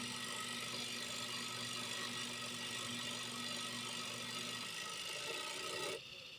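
Newly fitted spin-dryer motor of a twin-tub washing machine running under test: a steady electric hum with the whir of the spinning basket, showing that the new motor turns. The hum stops about four and a half seconds in while the whir carries on, then the sound cuts off suddenly near the end.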